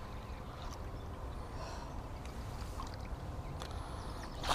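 Faint water trickling and gurgling around a small fishing boat on a calm river, with a few light clicks scattered through it and a faint high chirp near the end.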